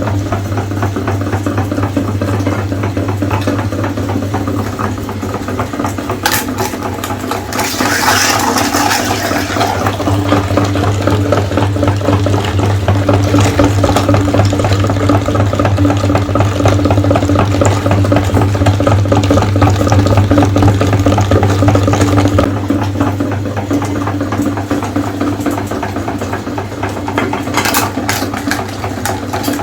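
Electric meat grinder motor running with a steady hum while eggs are pushed through it, a wet, rattling grinding noise on top. A louder burst of grinding comes about eight seconds in.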